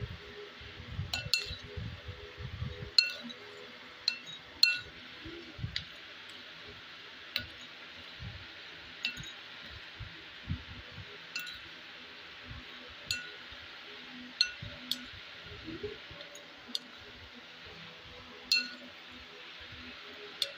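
Scattered sharp clinks from white ceramic bowls, each ringing briefly, as crispy dalmoth snack mix is spooned into them with a plastic spoon. There are a few dull knocks in the first three seconds, all over a faint steady hiss.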